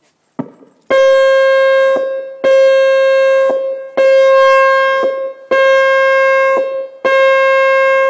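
Outdoor tsunami warning siren on a test, sounding its alert signal: five steady-pitched tones of about a second each, evenly spaced with short gaps between them.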